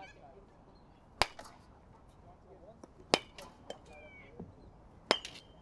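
Baseball bat hitting front-tossed balls: three sharp cracks about two seconds apart, each followed by a few fainter clicks.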